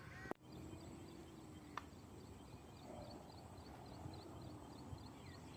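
Faint outdoor background noise, with a single click near the start and a soft run of quick high chirps, about four a second, in the middle.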